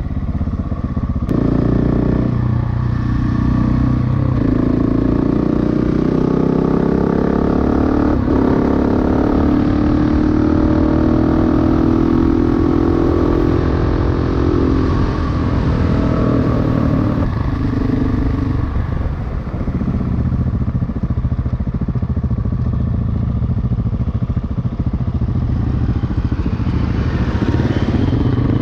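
Single-cylinder dual-sport motorcycle engine under way. It revs up over the first few seconds and holds a steady, slightly climbing pitch at speed. About halfway through it eases off to a lower, rougher running, then picks up again near the end.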